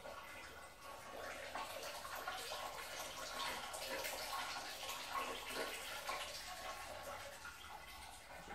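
Wort draining and dripping out of a lifted brew-in-a-bag grain bag, splashing back into the boiler, louder through the middle few seconds.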